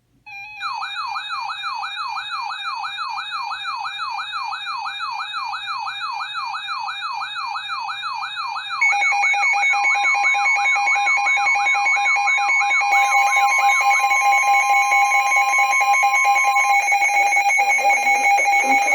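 Emergency alert tones: a siren-like tone warbling up and down about three times a second, joined about nine seconds in by louder steady alarm tones. These include a steady single tone near 1 kHz for about seven seconds, the NOAA Weather Radio warning alarm tone. Near the end a voice begins.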